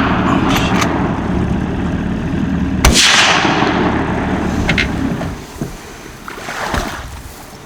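A rifle shot about three seconds in, its report echoing and fading over about a second, over the steady low drone of a boat's outboard motor, which drops away about five seconds in.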